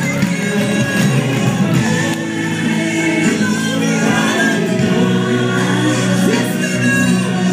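Gospel music with a choir singing, steady and loud.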